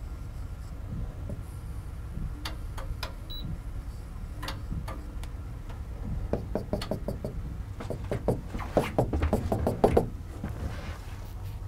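Stylus tapping and clicking on an interactive whiteboard screen during drawing: a few scattered clicks, then a fast run of taps from about six seconds in, loudest near the end, over a steady low hum.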